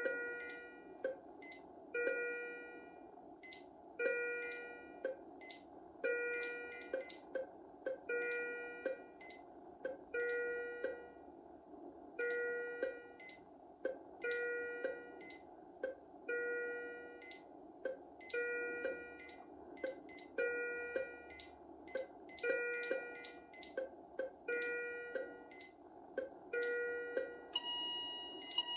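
Philips IntelliVue MP30 patient monitor sounding an alarm: an electronic multi-tone chime that repeats about every two seconds, with short single beeps in between. Near the end a new steady two-pitch tone starts.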